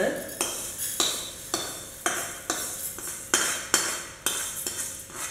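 A metal spoon scraping and knocking against a steel kadai as roasted moong dal is tipped out into a pressure cooker: a steady run of sharp metal clinks, about two a second.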